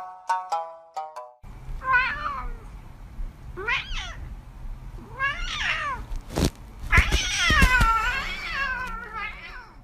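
Domestic cat meowing about five times, each call bending in pitch. The longest and loudest is drawn out for over a second near the end, with a few sharp knocks in between. Plucked-note music ends about a second in.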